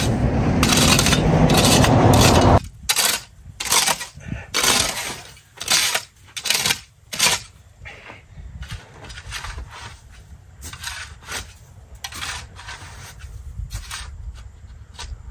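A small shovel scraping snow off the ground in short repeated strokes, about two a second, growing fainter after about seven seconds. Before that, a loud steady rushing noise cuts off suddenly about two and a half seconds in.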